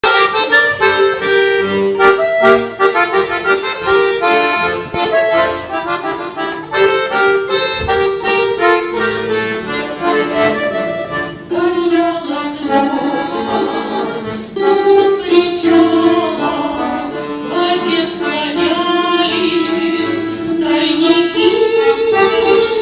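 Accordion playing a Russian folk-song melody, with quick short notes for the first half and longer held notes after.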